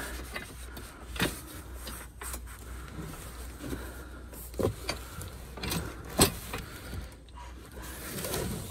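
Cardboard packaging and plastic-bagged metal parts being handled and shifted, giving scattered knocks and crinkles, the sharpest about six seconds in, over a steady low rumble.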